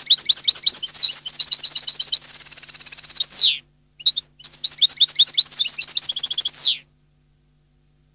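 European goldfinch singing: two long phrases of rapid, twittering high notes, the first with a fast trill in its second half. Each phrase ends in a falling note, and a short pause separates them.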